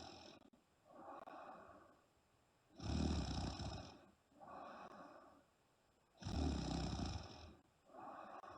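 A sleeping woman snoring heavily in a slow, regular cycle. There are two loud snores about a second long, each followed by a softer, breathy sound.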